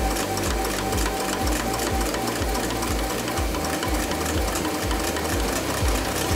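Forging press squeezing a red-hot bar of steel, running with a steady whine and a repeating pulse of low strokes about three a second.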